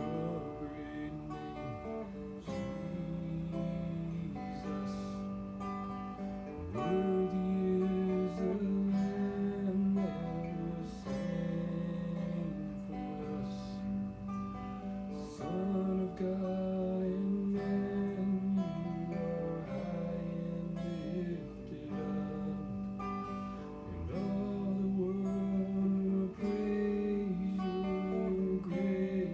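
Acoustic guitar strummed steadily, playing the chords of a worship song.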